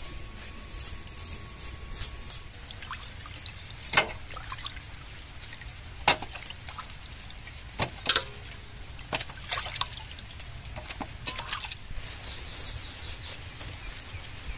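Knife working on a fish: scaling and cutting it, with scattered sharp clicks and knocks, about seven or eight through the span, over a steady high hiss.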